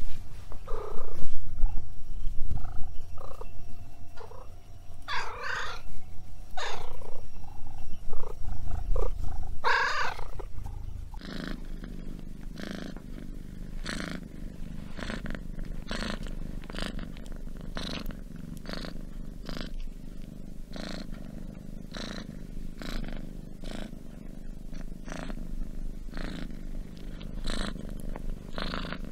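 Domestic cat purring: close and loud for the first ten seconds or so, with a few brighter sounds over it, then a softer, steady purr that rises and falls about one and a half times a second with its breathing.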